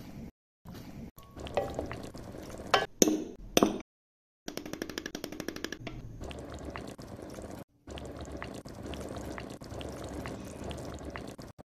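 Kitchen sounds in quick cuts while chicken corn soup is made: liquid poured into a pot, a spoon clinking against a glass bowl, and a pot of soup simmering and being stirred. The sound cuts out abruptly between clips.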